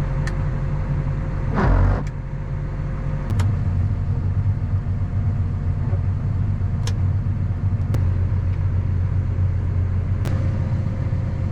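A vehicle engine running steadily with a low rumble, with a thump about a second and a half in and a few sharp clicks.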